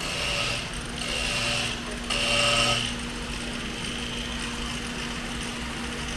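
A small motor whirring in three short bursts of under a second each, about a second apart, over a steady low hum.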